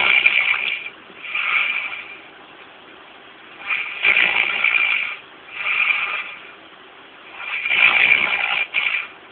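Slow, rhythmic noisy breathing, with a paired longer and shorter breath about every four seconds.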